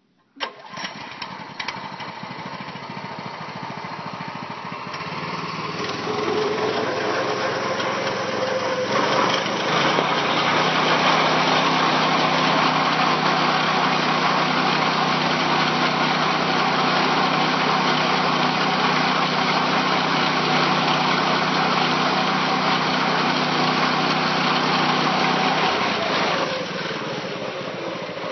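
Small engine driving a rope-tow winch, speeding up over the first several seconds and then running steadily at high speed as it reels in the tow rope, before throttling back near the end.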